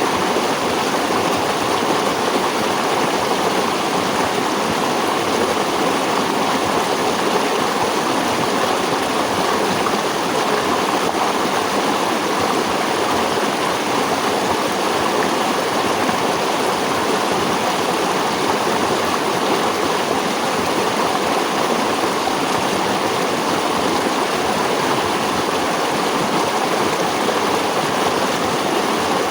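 Flowing water of a stream rushing steadily over rocks, an even, unbroken sound.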